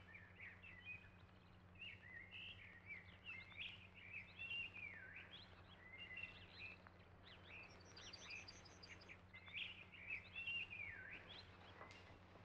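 Faint birdsong: a songbird's quick chirps and whistles, up and down in pitch, with a short fast trill of high notes about two-thirds of the way through, over a low steady hum.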